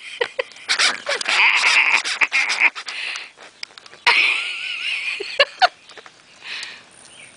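Nine-week-old Smooth Fox Terrier puppy whining in two long, high-pitched stretches as she tugs at a camera lens cap in her mouth. Sharp clicks and knocks come between them, from the plastic cap being chewed and jostled.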